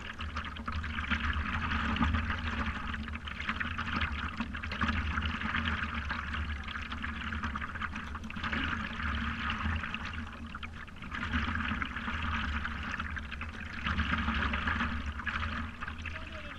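Water splashing and gurgling against the nose of a stand-up paddleboard, swelling and easing every few seconds over a low rumble.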